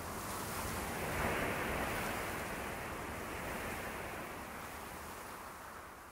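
A steady rushing noise with no tone in it, swelling a little about a second in and then slowly fading out toward the end.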